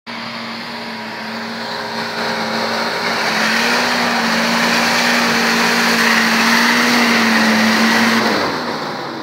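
Nissan Patrol 4x4's engine held at steady high revs as it pushes through deep mud, with tyre and mud noise; it grows louder as the vehicle approaches, and the revs fall away near the end.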